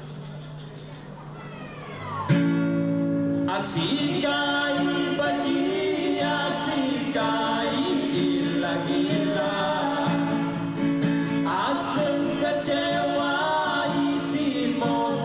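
Live band music with a male singer and electric guitar. It starts quieter for about two seconds, then the full band comes in and the singing carries on over it.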